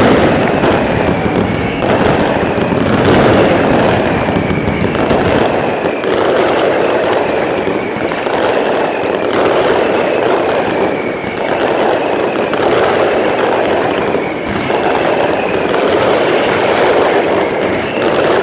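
Finale barrage of a fireworks display: a dense, unbroken crackling roar of many shells and crackling stars going off at once. Faint high whistles that fall in pitch recur every second or two.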